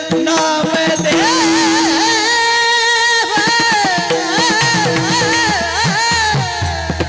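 Varkari kirtan singing: a male voice holding long, high, ornamented notes over a steady drone, with mridang strokes near the start and again near the end.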